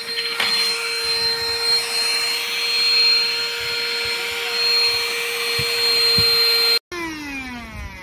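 HAN RIVER HRXCQ03WT cordless stick vacuum running on carpet, its motor a steady high whine. Near the end the sound cuts, and the motor winds down with a falling whine as it is switched off.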